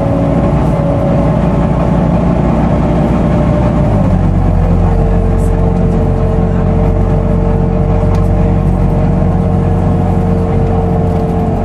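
Volvo B9TL double-decker bus under way, heard inside the upper deck: the engine runs with the loud whine of its cooling fan, a steady high note like a vacuum cleaner. About four seconds in the engine note changes and the whine drops a little in pitch, then holds, falling slowly.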